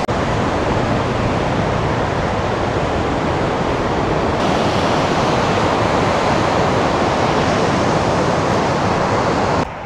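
Waterfall close up: a loud, steady rush of falling water and spray, cutting off abruptly near the end.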